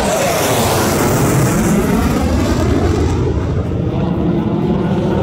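F-16 fighter jets passing overhead with a loud jet roar; the high hiss fades away after about three seconds, leaving a lower rumble.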